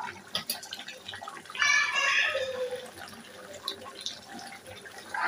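Chicken with spices sizzling and crackling in an oiled pan as it is braised and stirred, with scattered sharp crackles and clicks. About a second and a half in, a louder high-pitched voice or call sounds for about a second, falling in pitch at its end.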